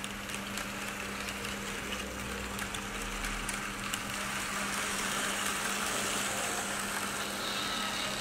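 Märklin model train rolling past on metal M-Track: the coaches run with a steady hum and light clicking over the rails. The running noise grows louder as the model DB class 220 diesel locomotive comes by near the end.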